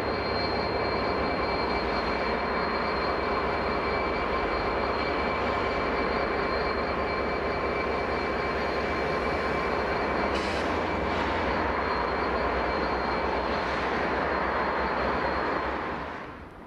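Class 66 diesel locomotive's two-stroke V12 engine running steadily, with a steady high-pitched whistle over the engine sound. It fades out near the end.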